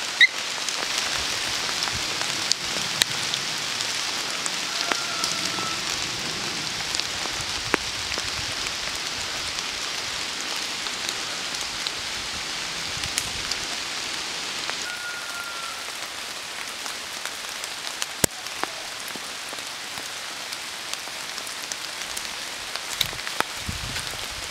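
Steady rain pattering on forest leaves, with many small drop ticks close by and two short whistled calls. One sharp tick stands out about three quarters of the way through.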